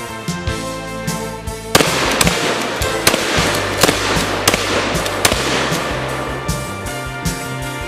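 Upbeat brass-band-style background music. About two seconds in, a dense stretch of sharp cracks and crashes joins the music for several seconds, then the music goes on alone.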